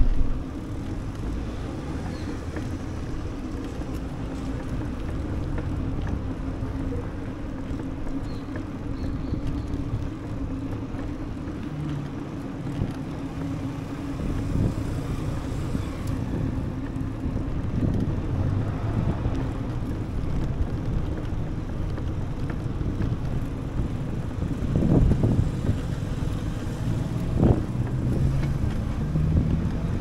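Wind rushing over the microphone on a moving bicycle, over a steady low rolling hum, with a couple of louder bumps near the end.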